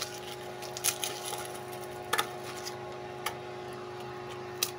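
A few scattered light clicks and taps from garlic cloves and the glass blender jar being handled, over a faint steady hum.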